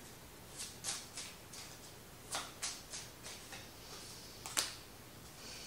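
Light, sharp clicks and taps at irregular spacing, two or three a second in short runs, with one louder click about four and a half seconds in.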